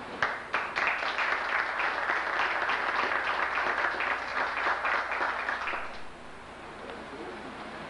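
Audience applauding, a dense patter of many hands clapping that lasts about six seconds and then dies away.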